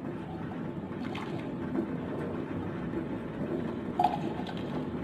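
A steady low rumble, with a few light clinks of a metal ladle against the stainless pot and the sweet corn can. The sharpest clink comes about four seconds in.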